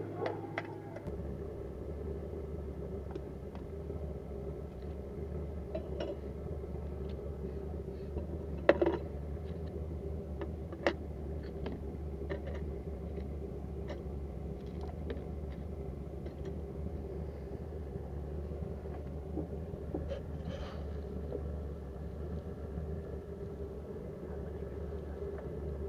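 A steady low rumble, with scattered light clicks and knocks as pieces of melted copper scrap are set on a digital scale. The loudest knock comes about nine seconds in.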